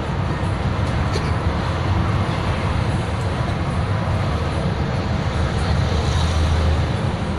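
A large vehicle's engine running under way, with steady road rumble, swelling a little near the end.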